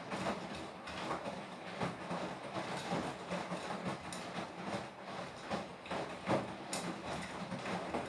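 Beko WTK104121W washing machine running mid-cycle: a steady motor hum as the drum tumbles, with the load and water sloshing and thudding about once or twice a second.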